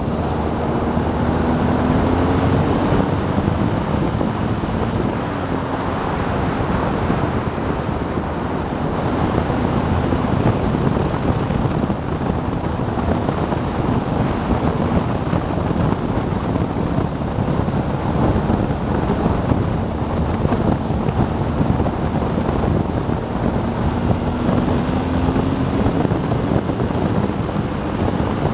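Wind rushing over the camera microphone at road speed on a BMW R 1200 GS Adventure motorcycle, with the flat-twin engine's note faintly beneath it. The engine pitch rises and falls near the start and again near the end.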